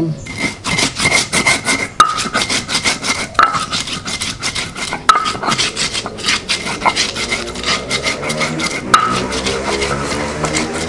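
Spices being ground by hand with a stone grinder, a quick even rubbing stroke about five times a second, with a few sharper knocks of stone on stone.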